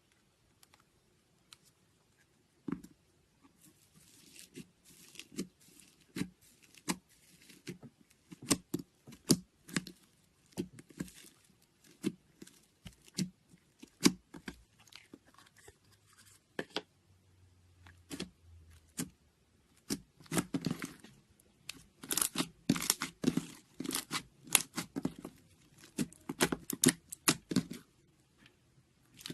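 Slime being squeezed, stretched and poked by hand, giving a run of sharp sticky clicks and crackling pops, sparse at first and coming thick and fast in the last third.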